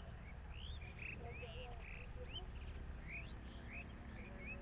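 Outdoor chorus of small animals calling: many short, rising chirps, several a second and overlapping, over a low steady rumble and a faint high steady whine.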